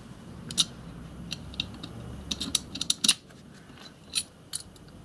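Metal parts of a model steam locomotive's reversing stand clicking and clinking as they are threaded together by hand onto the bolts: a dozen or so short, light clicks, the loudest about half a second in, about three seconds in and just after four seconds.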